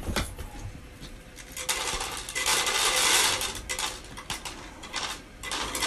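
Automatic pet feeder dispensing dry cat kibble: a dense rattle of pellets clattering into its plastic tray. It thickens about two seconds in and eases off near the end.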